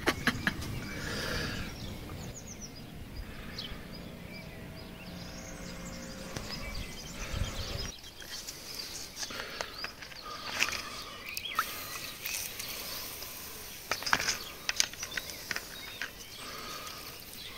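Outdoor background noise with a few faint bird chirps and scattered small knocks and clicks. The background changes abruptly about 8 seconds in.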